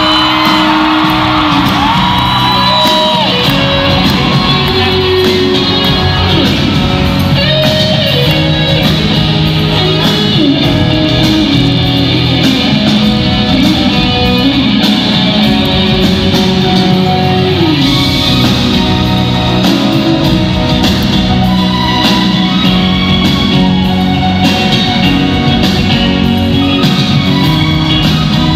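A live band playing loudly in a large arena, with guitar and a steady drum beat, and shouts from the crowd over the music.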